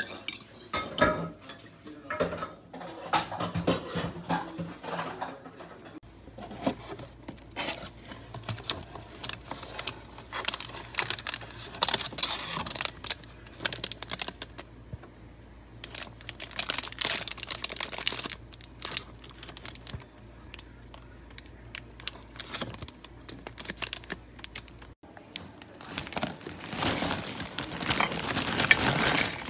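Crinkling and tearing of plastic food wrappers being handled and opened: an ice-cream bar wrapper, then a snack bag. A spoon clinks against a mug at the start, and a steady low hum runs through the middle.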